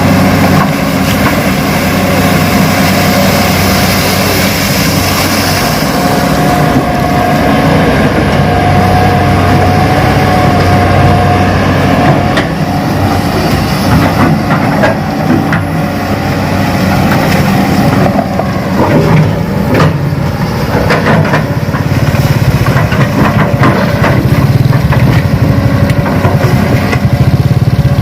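Radio-controlled Hitachi excavator running with a steady engine drone. A wavering whine rises over it from about six to twelve seconds in, and scattered clicks and scrapes follow as it works the dirt.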